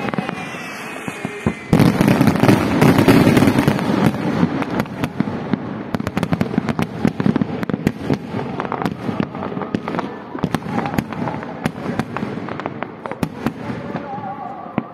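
Aerial fireworks: a faint, slightly falling whistle, then a loud burst about two seconds in, followed by dense crackling of many small pops that gradually thins out.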